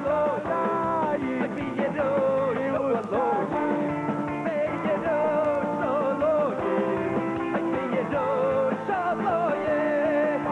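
Live Jewish rock band playing: electric guitars and drums under a wavering lead melody.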